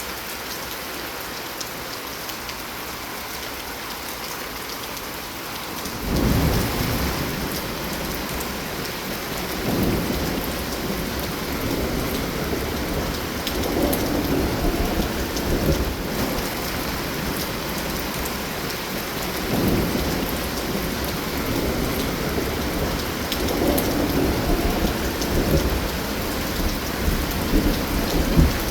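Steady rain falling, then from about six seconds in a long low rumble of thunder that rolls on and swells again several times.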